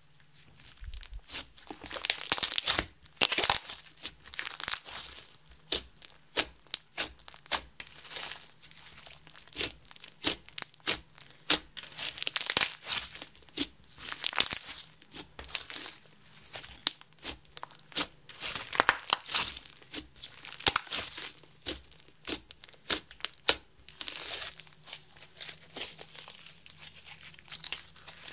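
Hands squishing, stretching and folding sticky pink slime with beads mixed in: irregular clusters of sharp clicks and crackles, coming in bursts every second or two.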